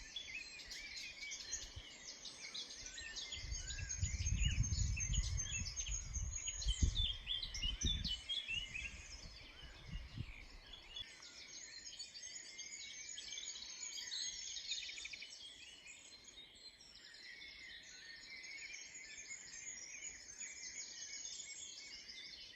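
Dawn chorus: many songbirds singing at once, a dense tangle of overlapping chirps, trills and phrases. A low rumble joins in a few seconds in and lasts about four seconds.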